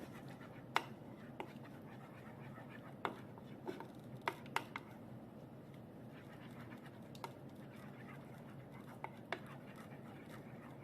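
Utensil stirring a thick sauce-and-spice marinade in a bowl, with sharp clinks against the bowl: about six in the first five seconds, then fainter scraping and clicks. A steady low hum runs underneath.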